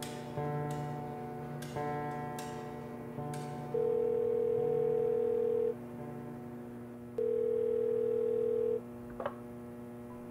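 Soft plucked-guitar music gives way to two long, steady telephone ringing tones, about two seconds each, as a call rings through on a payphone line. A short click follows near the end, with a steady musical drone underneath throughout.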